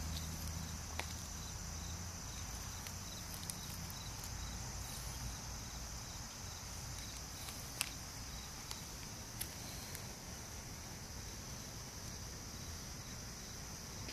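Steady high-pitched chorus of insects chirping, with a faint evenly repeating pulse beneath it. A few short, sharp clicks sound, the clearest nearly eight seconds in.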